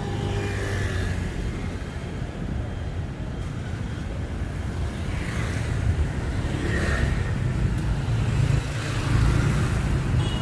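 City street traffic: a steady low rumble of vehicle engines, with passing vehicles swelling up now and then, a little louder in the second half.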